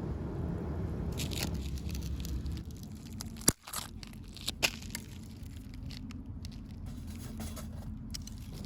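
Small dry wood, twigs and pine cones, crackling and snapping, with scattered sharp snaps over a steady low rumble; the loudest is a single sharp crack about three and a half seconds in.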